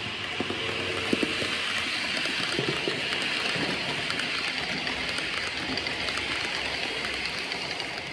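Model train rolling past close by: a steady metallic rolling hiss from the wheels on the track, with scattered light clicks over the rail joints, fading as the train moves off near the end.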